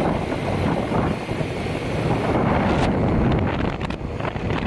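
Wind buffeting the microphone: a loud, gusting rumble with no steady tone in it.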